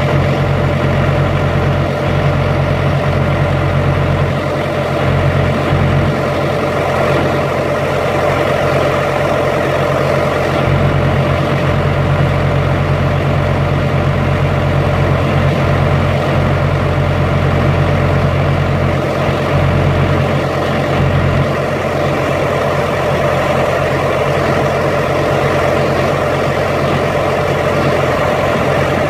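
Carrier Transicold reefer unit running steadily through the warm-up (heating) test of its automatic pretrip: the diesel engine's low drone with a steady higher hum over it.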